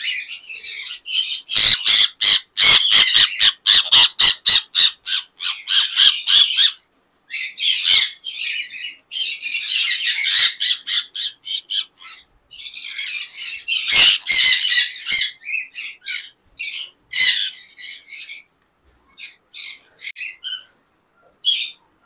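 Conures squawking: harsh, high calls in rapid runs of many short strokes, thinning out to scattered single calls near the end.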